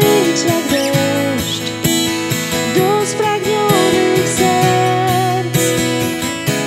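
Acoustic guitar strummed through a C♯m7, E and Bsus4 chord progression, with a wavering melody line above the strumming.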